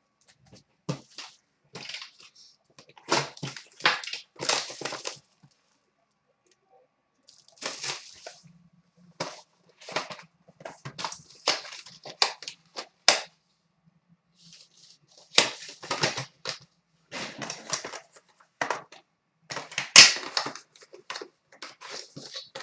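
Handling the packaging of a sealed trading-card box as it is opened: irregular bursts of crinkling and tearing wrapper, with sharp clicks of cardboard and hard plastic card cases. There is a pause of about two seconds near a quarter of the way in.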